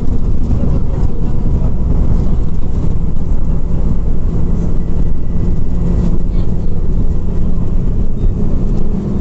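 Scania OmniCity CNG city bus under way, heard from inside the passenger cabin: steady engine drone over a low rumble of road and tyre noise, with the engine note strengthening after a few seconds.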